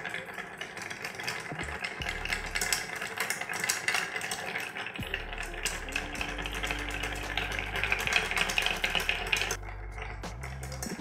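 Ice cubes clinking against the walls of a crystal mixing glass as a bar spoon stirs them, a rapid, continuous run of light clicks that eases off near the end. Background music runs underneath.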